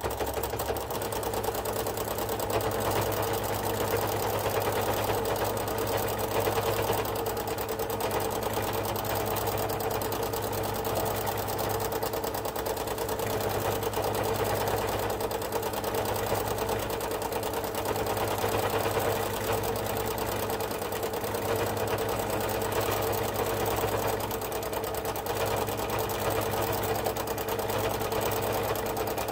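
Domestic sewing machine starting up and running steadily at a fast, even speed, free-motion stitching with its feed dogs lowered, the needle's rapid strokes running together into a continuous chatter.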